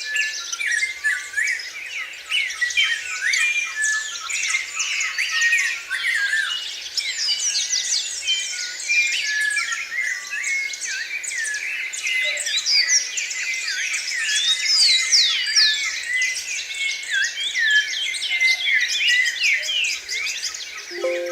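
Many birds singing at once: a dense chorus of quick, overlapping chirps, whistles and trills with no pause.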